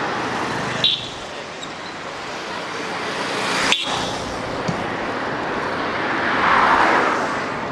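Busy city road traffic: a steady wash of passing cars, with a short sharp click about a second in, another a little before halfway, and a vehicle swelling up close and passing near the end.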